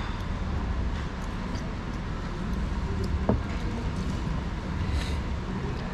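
Steady low rumble of dining-room background noise, with a single knock about three seconds in as a glass soft-drink bottle is set down on the table.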